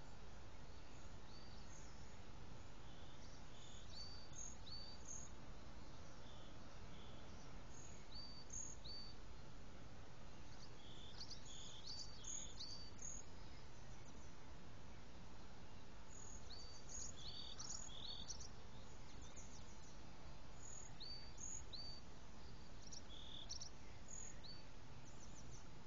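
Birds chirping: scattered short, high chirps and hooked call notes in small clusters, over a steady low background rumble.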